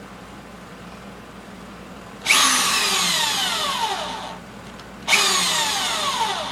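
Power drill driving screws into wood in two runs of about two seconds each, the motor's pitch falling through each run as it slows under load.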